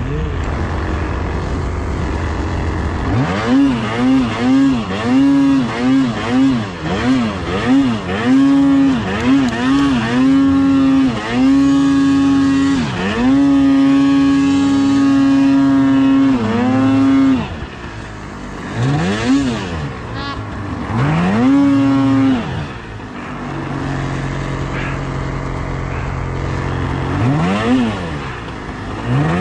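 Arctic Cat M8000 mountain snowmobile's two-stroke twin engine ticking over low, then revved in quick repeated throttle blips and held at high revs for a few seconds as the sled ploughs through deep powder. After a drop in revs it gives a few more short throttle bursts near the end.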